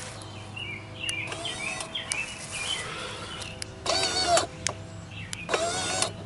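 Small electric motor of a Raceland 2.5-inch electric exhaust cutout whirring twice, each for about half a second, in the second half: the butterfly valve being driven one way by the remote and then back. Birds chirp before it.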